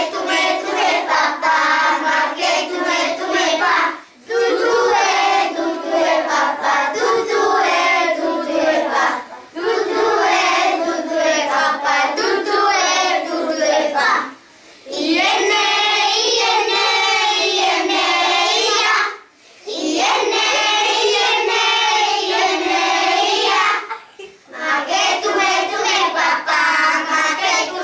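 A group of young children singing together unaccompanied, in phrases of about five seconds with short breaks for breath, with hand claps along with the song.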